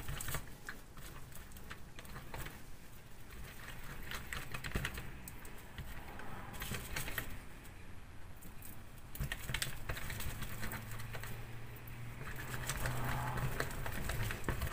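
Silicone pastry brush dabbing and swiping butter around the cups of a silicone muffin mould, with the mould shifting on the table: a run of small, irregular soft taps and clicks.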